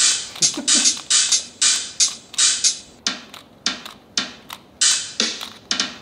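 Electronic drum hits played by a tablet app, each one triggered by a turn of a Bluetooth Rubik's Connected cube. About a dozen hits come at roughly two a second in an uneven rhythm, each sharp at the start and fading quickly.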